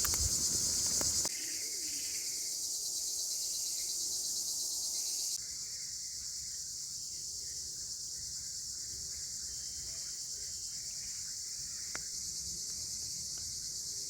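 Steady high-pitched insect chorus, stepping down in loudness about a second in and again about five seconds in, with faint bird chirps and a single sharp click near the end.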